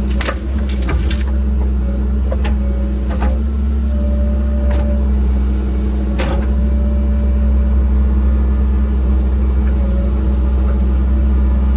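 Engine of a land-clearing machine running steadily with a constant low drone, with scattered sharp clicks and knocks in the first half.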